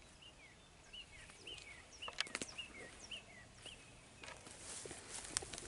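A small bird calling over and over: about nine short chirps, each dropping in pitch, across the first three and a half seconds, with a few sharp clicks among them. A rustling noise builds near the end.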